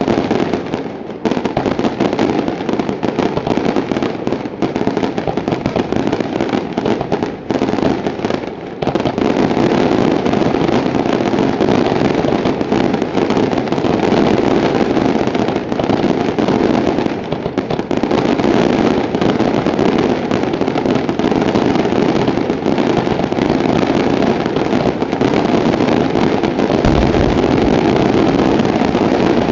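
Daytime fireworks fired from a barge: a dense, continuous rolling rumble of rapid-fire reports, with a few brief lulls in the first nine seconds, then unbroken.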